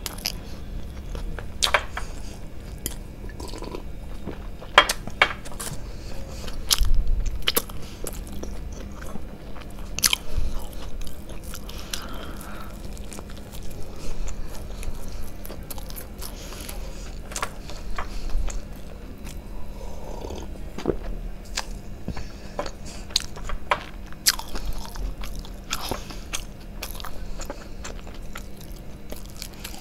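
A person biting and chewing a chicken burger close to the microphone: irregular crisp clicks and wet mouth smacks throughout.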